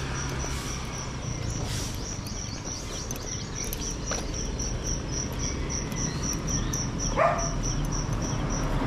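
An insect chirping steadily and high, about three chirps a second, over a low background rumble. A short rising squeak stands out about seven seconds in.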